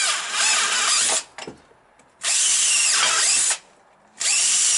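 Power drill re-drilling a stripped screw thread in aluminium to take a helicoil insert, run in three bursts with short pauses between them.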